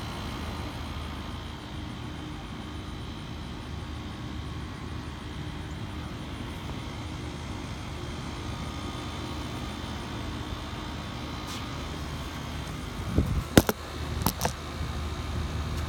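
Steady low outdoor rumble. Near the end it is broken by a few sharp clicks and knocks as the phone is handled and moved.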